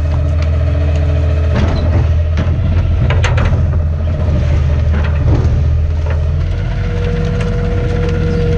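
Garbage truck engine running steadily, with scattered knocks and clatters from the truck body and hopper. A steady higher whine comes in about seven seconds in.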